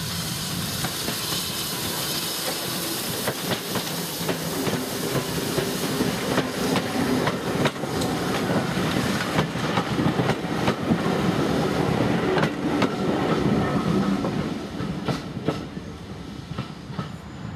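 Steam tank locomotive passing close by with steam hissing, followed by Mk1 coaches rolling past, their wheels clicking steadily over rail joints; the sound fades near the end as the train draws away.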